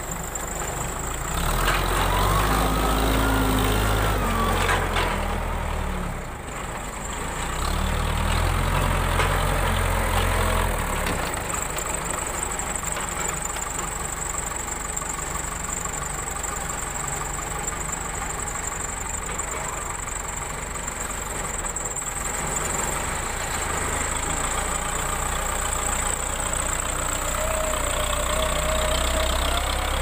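Case backhoe loader's diesel engine running as the machine works with pallet forks, growing louder twice early on as it is put under load. A whine rises and falls during the first of these louder stretches, then the engine runs steadily.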